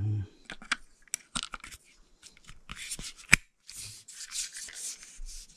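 Hands handling pressure-washer nozzle parts and a spray gun: irregular rubbing and scraping with scattered small clicks, and one sharp click about three seconds in, as the parts are tried together and don't fit.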